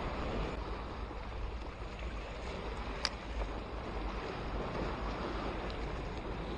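Sea waves washing against concrete breakwater blocks, with wind buffeting the microphone as a low rumble. A single sharp click comes about three seconds in.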